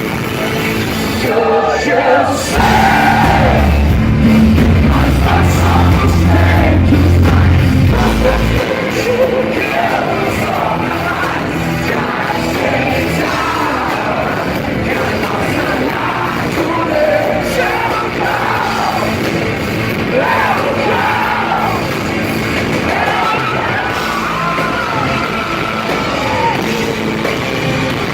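Live rock band playing loudly, with voices singing and yelling over it; the heavy bass drops out about eight seconds in.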